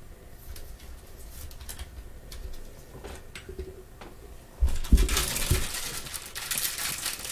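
Gloved hands handling trading cards and setting them on acrylic display stands: scattered light clicks and taps, then about four and a half seconds in a thump followed by rustling.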